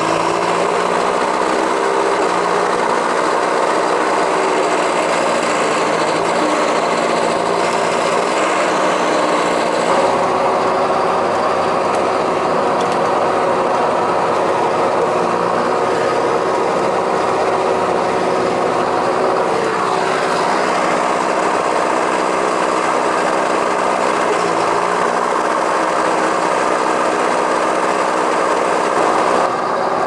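John Deere 6430 tractor's four-cylinder diesel running steadily under load, heard from inside the cab, while the power take-off drives the Shelbourne Reynolds muck spreader's beaters flinging muck. The engine note holds steady with small shifts in pitch every few seconds.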